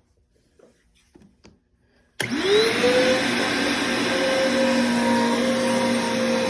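Bissell PowerForce bagged upright vacuum cleaner switched on about two seconds in: a sharp click, then its motor whines up to speed within a second and runs steadily.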